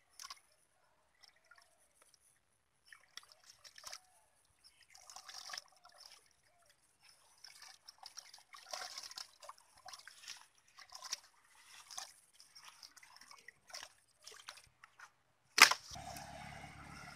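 Hands groping through muddy water in a hole for eels and fish, giving irregular sloshing and squelching. Near the end a sharp knock, then a steady low rumbling noise.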